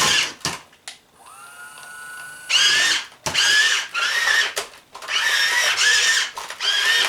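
Hobby Engine 1/12 scale RC track loader's electric motors and gearboxes whining in repeated bursts of a second or two as it is driven hard, with a quieter lull about a second in.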